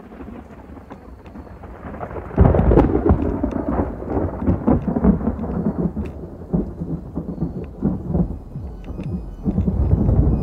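Thunder rumbling over falling rain; the rumble swells suddenly about two and a half seconds in and stays loud.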